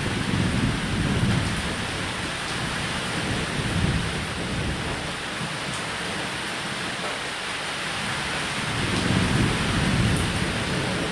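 Steady rain falling on a roof, with low rolling thunder that swells at the start, again around four seconds in, and most strongly near the end.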